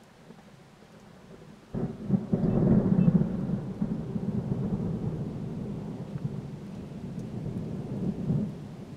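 Thunder: a sudden crack nearly two seconds in, then a long low rumble that is loudest about a second later, swells again near the end and fades.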